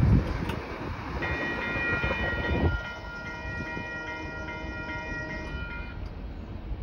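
Freight train rumbling away in the first few seconds, then a distant diesel locomotive air horn sounding a held chord for about five seconds.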